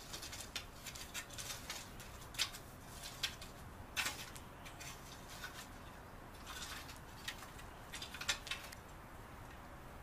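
Rake scraping through freshly tilled loose soil in irregular strokes, with a few sharper clicks, as the ground is leveled.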